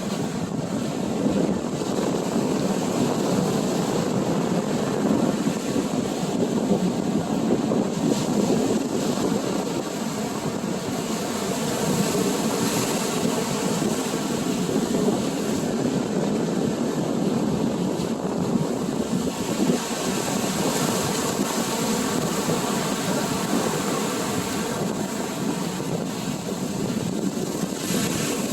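Steady rumbling rush of ocean surf breaking on the beach, with wind on the microphone.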